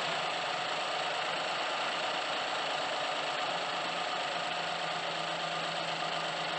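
2007 Mazda CX-7's 2.3-litre turbocharged four-cylinder engine idling steadily, just after its first start with a newly installed throttle body.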